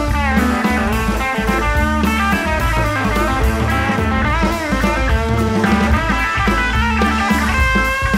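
Guitar music with drums, played back from tape on a 1976 Akai X-201D reel-to-reel deck.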